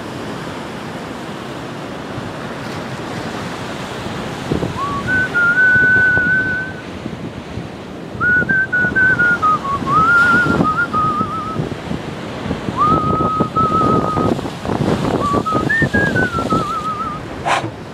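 A person whistling a tune in four short phrases of held and gliding notes, over the steady wash of sea waves on breakwater rocks.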